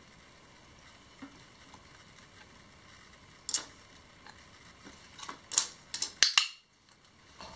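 Push-button treat-dispensing toy being worked by a small dog's paw and nose: a scatter of sharp clicks and taps, with the loudest two coming close together near the end.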